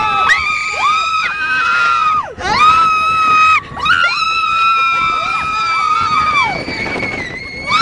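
Roller coaster riders screaming: several voices give long, high, held screams that overlap one after another, broken off briefly twice.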